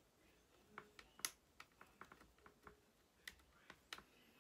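Scattered light clicks and taps, about ten of them at an uneven pace, as fingers press and work along the top edge of an HP Chromebook's display lid; one click a little over a second in is clearly louder than the rest.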